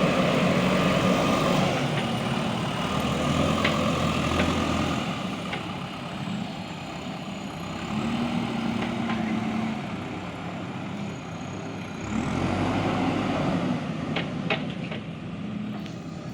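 Diesel engine of a JCB backhoe loader running under varying load, its note swelling and easing as the machine works. There are a few sharp knocks near the end.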